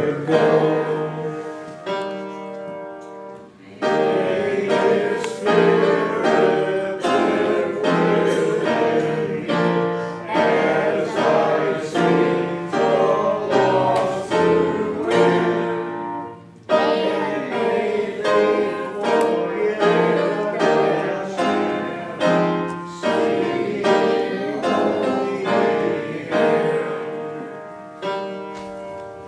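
Piano playing slow chords, each note dying away after it is struck, with short pauses between phrases about 4 and 17 seconds in.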